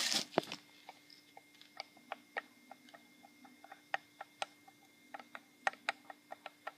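Light metallic clicks, a few a second, as the KX100's connecting rod is rocked by hand on the crank: the clicking is the play of a worn-out big-end (bottom rod) bearing. A faint steady hum runs underneath.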